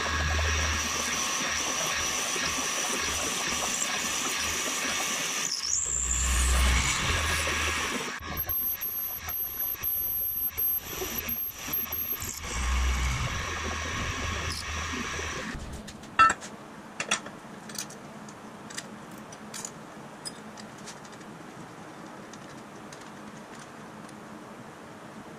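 A machine tool cutting metal with a steady high squeal, interrupted briefly a few seconds in, that stops about fifteen seconds in. Then come a few light clicks and taps.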